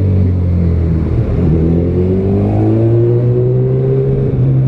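Honda CB1000R's inline-four engine through a Yoshimura exhaust, running steadily, then accelerating from about a second and a half in, its pitch rising gradually for about three seconds.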